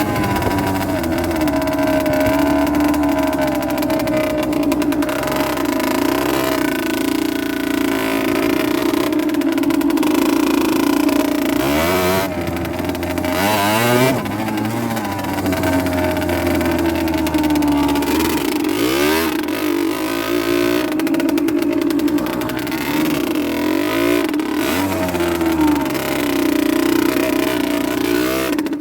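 Rieju Drac 50's small two-stroke engine running under way, the revs rising and falling as it is ridden, with a few quick rev swings about halfway through.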